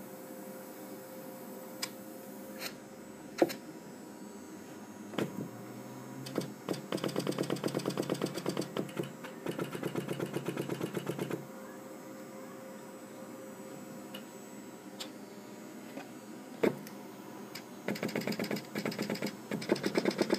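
Pneumatics of a restored Seeburg Model K 58-note player-piano stack being worked under vacuum: a few single knocks, then three bursts of rapid clattering as pneumatics collapse and open over and over in quick repetition.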